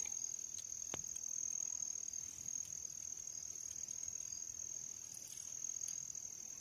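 Crickets trilling in a steady, unbroken high-pitched chorus, with a single faint click about a second in.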